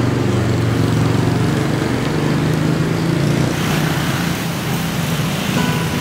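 A motor vehicle engine running steadily with a low hum. Its pitch rises a little about halfway through.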